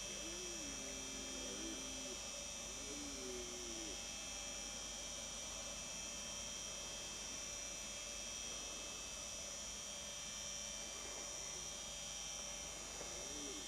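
Steady hum and hiss with thin high whining tones throughout. Faint wavering low calls come through in the first few seconds and again near the end.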